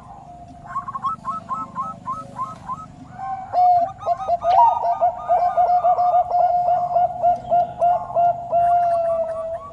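Bangkok turtledove, a zebra dove, singing: a fast train of short cooing notes, about four to five a second, with a second, higher series of notes overlapping. The song grows louder a few seconds in and closes with a longer drawn-out note near the end.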